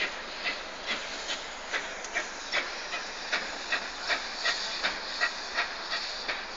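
Steam locomotive working, with sharp, evenly spaced exhaust beats about two and a half a second over a steady hiss of steam.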